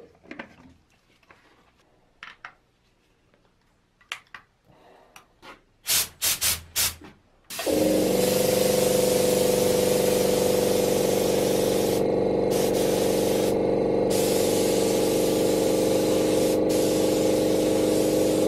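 Gravity-feed spray gun spraying black paint: a few light handling clicks as the paint cup is fitted, four short bursts of air about six seconds in, then a loud steady hiss with a steady tone underneath, dipping twice for a moment near the middle.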